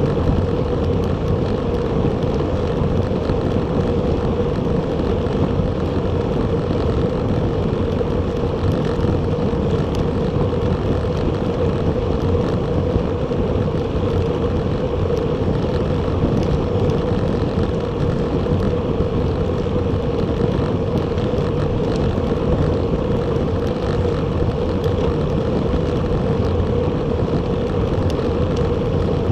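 Steady wind and road noise on an action camera riding along on a Bacchetta Corsa recumbent bicycle, a low rush with a steady mid-pitched drone running through it.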